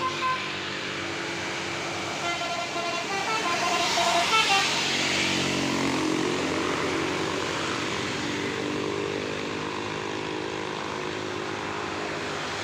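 A bus's multi-tone telolet horn of the "basuri" type playing a quick run of short stepped notes, over the steady running of a heavy diesel engine. The horn plays about two to four and a half seconds in, when the passing bus is loudest.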